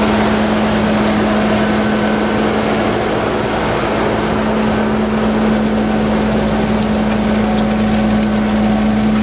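Fendt 724 tractor running steadily under load, a loud constant drone with one unwavering hum, as it pulls a six-furrow reversible plough through stubble, with the rough noise of the soil and stubble being turned.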